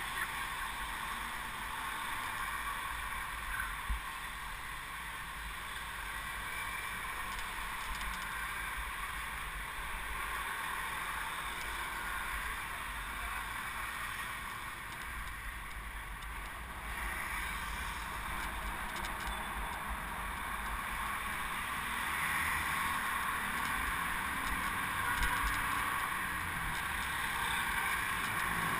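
Steady rushing wind and road noise from a camera mounted on a moving bicycle, with street traffic mixed in; it grows a little louder in the last few seconds.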